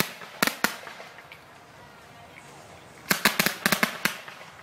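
Aerial fireworks bursting: a few sharp bangs at the start, a lull, then a rapid string of bangs about three seconds in.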